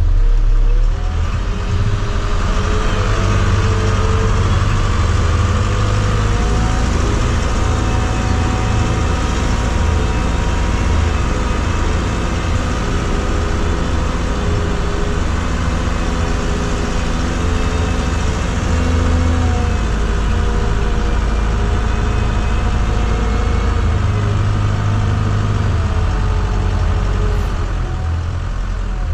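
Telehandler's diesel engine working under load as the machine drives over the silage pit to compact the grass, its revs rising and falling several times.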